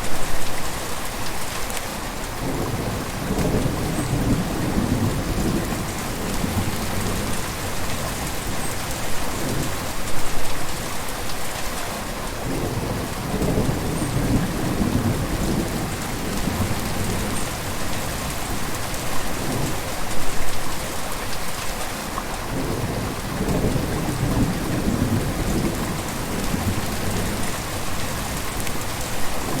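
River water flowing: a steady rushing hiss with deeper rumbling swells that build and fade about every ten seconds.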